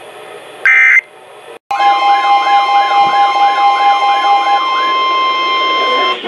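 Weather radio emergency alert: a short screeching data burst about a second in, then, after a brief break, a steady alert tone with a siren-like warble rising and falling about three times a second. The warble stops partway through while the tone holds almost to the end.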